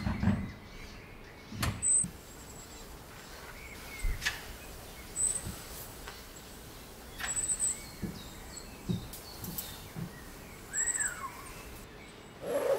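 Scattered light knocks, clicks and soft thumps of rooftop-tent fabric and frame being handled and tucked in, with brief high bird chirps now and then.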